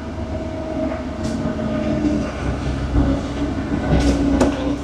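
Heavy-equipment diesel engine running steadily under load with a constant whine, while the machine is inched slowly along. A few sharp knocks sound near the end.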